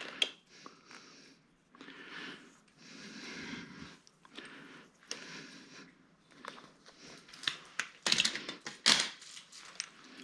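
Rustling and small plastic clicks of an Ethernet cable and RJ45 connector being handled, with a cluster of sharper clicks about eight to nine seconds in.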